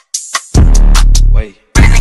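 Electronic dance music with a heavy bass and a drum-machine beat. The bass drops out briefly at the start and again about three-quarters through, with sharp drum hits in the gaps.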